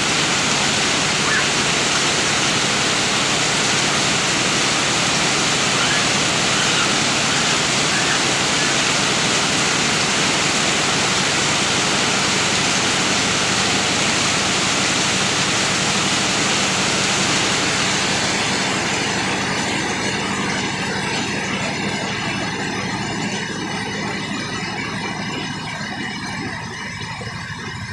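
Heavy rain pouring onto a corrugated metal roof and the wet ground, a dense steady hiss. About two-thirds of the way through it turns lighter and thinner and grows gradually quieter.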